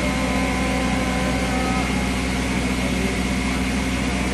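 Motor boat's engine running steadily under way, a low even drone with the hiss of the hull moving through water.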